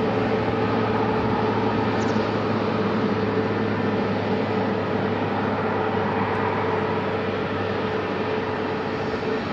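Jet engines of taxiing airliners, an Airbus A320 in front with an Airbus A330 behind, running at idle: a steady rumble and hiss with a held hum.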